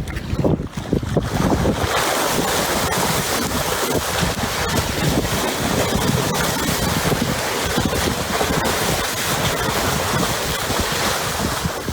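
Strong wind buffeting the microphone over rough sea, with waves and rushing, splashing water around a boat. It starts abruptly and stays loud and steady.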